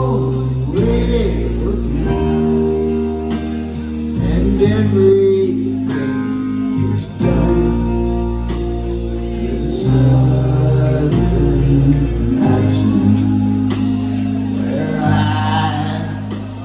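Live rock band playing a slow ballad in waltz time, with electric guitars and bass holding chords under singing.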